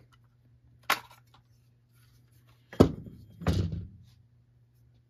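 Knocks and clatter of a string trimmer's plastic recoil housing and thin metal plate being handled on a wooden workbench: a sharp click about a second in, a loud knock near three seconds, then a short clatter.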